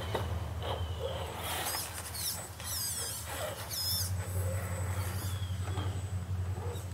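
RC rock crawler's electric drive motor and gearbox whining as it crawls, the pitch rising and falling in short glides as the throttle is worked, over a steady low hum.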